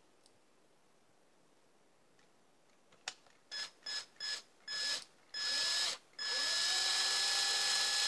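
Cordless drill boring slowly into a basswood guitar body. About three seconds in, the trigger is feathered in a string of short bursts. Then it is held down, and the motor spins up and runs steadily near the end.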